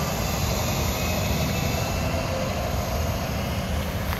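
Tractor-trailer semi truck driving past, a steady rumble of engine and road noise.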